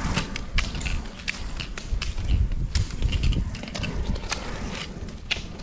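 A passing biathlete's strides on the course: a run of sharp, irregular clicks and taps over a low rumble.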